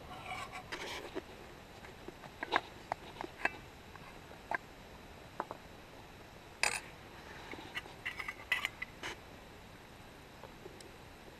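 Scattered light clicks and scrapes of a knife and a spoon on metal camp cookware, as damper is cut in a metal pan and ricotta is scooped from a pot. The sharpest clink comes a little past halfway, followed by a short run of taps.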